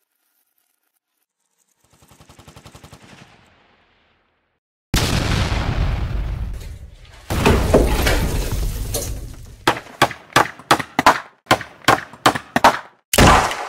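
A faint rattle, then two long loud crashing bursts, followed by a quick run of sharp bangs at about three a second and one last loud bang near the end.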